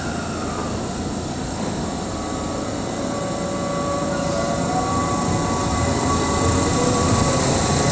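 JR West 223 series electric train pulling away from the platform: a steady motor whine over the rumble of wheels on rail, growing slowly louder as the cars roll past.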